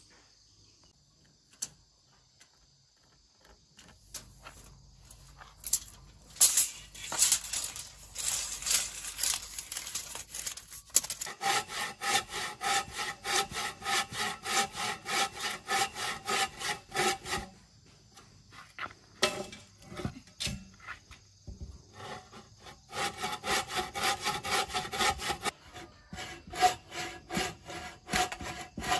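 Hand bow saw cutting through a green log in rapid back-and-forth strokes, the blade ringing under each stroke. The sawing starts about six seconds in and stops briefly a few times.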